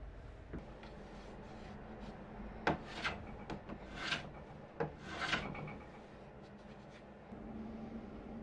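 Hand tools working a walnut box lid: a few sharp knocks of tool and wood on the bench, and two short rubbing strokes on the wood about four and five seconds in.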